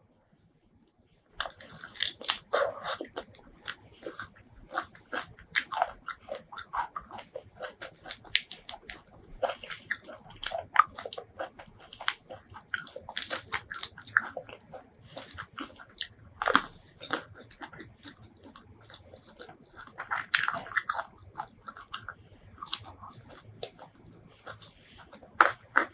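Close-miked eating: biting, crunching and chewing, with crackles as cooked prawns are pulled apart by hand. It begins about a second in and runs as a busy, irregular stream of short snaps and clicks.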